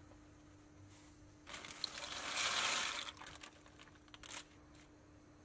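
A plastic bag of dry penne crinkling as the pasta is tipped out and slides into a pot of water. The rustle lasts about a second and a half, with a couple of shorter rustles after it.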